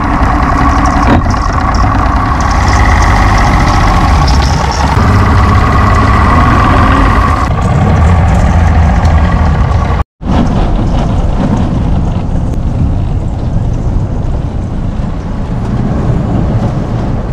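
Motorboat's outboard engine running steadily under way as the hull breaks through thin skim ice, with the rush of water and ice along the hull. The sound cuts out for an instant about ten seconds in.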